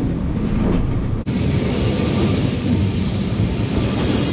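A 1930s wooden Lisbon tram running along its rails, heard from inside the car: a steady rumble and rattle of the wheels and body. The sound drops out for an instant about a second in, then goes on with more hiss.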